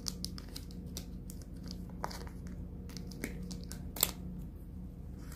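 Plastic sauce sachet from a Samyang 2x Spicy instant-noodle pack being crinkled and torn open by hand: a run of small crackles, with one sharp crack about four seconds in. A steady low hum runs underneath.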